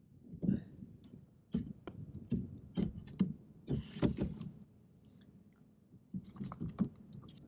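Irregular clicks, knocks and rustles of a caught California halibut and a fish lip-grip being handled aboard a kayak, in clusters with a lull about two-thirds of the way through.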